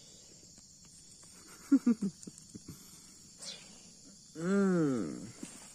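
Leopard cat kitten mewing: three short mews about two seconds in, then one loud, long mew that rises and falls in pitch near the end. A steady high chirring of crickets runs underneath.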